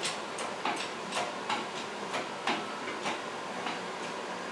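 Lift mechanism clicking in a quick, slightly irregular series, about three clicks a second, as it slowly hoists the outer housing of a Fairchild J44 turbojet up off the turbine shaft.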